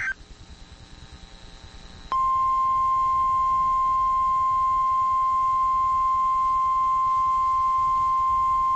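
NOAA Weather Radio warning alarm tone: a single steady 1050 Hz tone that switches on about two seconds in and holds unchanged. Before it there is a brief burst of tones at the very start, then faint radio hiss.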